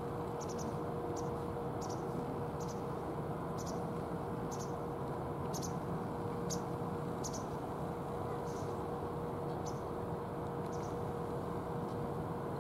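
A small bird's short, high chirps, repeated roughly once a second and growing sparser near the end, over a steady outdoor hiss and a faint steady hum.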